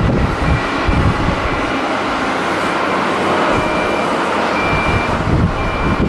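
Twin-engine widebody airliner's jet engines at takeoff power during the takeoff roll, a steady roar, with gusts of strong wind buffeting the microphone.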